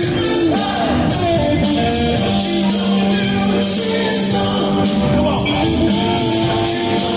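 Live rock band playing a song, with singing.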